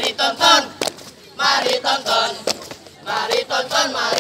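A group of boys chanting a scout cheer (yel-yel) together in short shouted-sung phrases with brief pauses between them.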